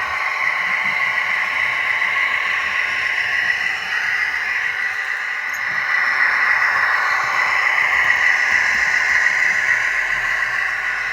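Hornby model Class 56 locomotive running on the track: its DCC sound decoder plays the diesel engine through the model's small onboard speaker, mixed with the running noise of its motor and wheels. A steady sound, a little louder in the second half.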